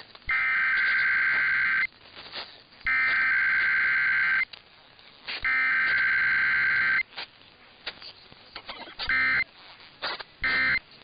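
Emergency Alert System SAME header: three buzzing digital data bursts of about a second and a half each, a second apart, sent at the start of an EAS test. Two short bursts of the same kind follow near the end.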